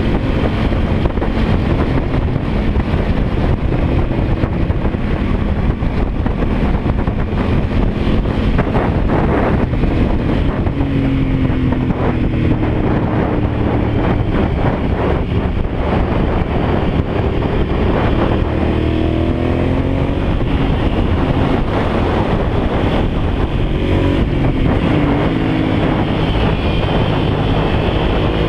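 Motorcycle engine running hard on a fast ride, its note climbing and dropping several times, under a heavy rush of wind over the microphone of the moving bike.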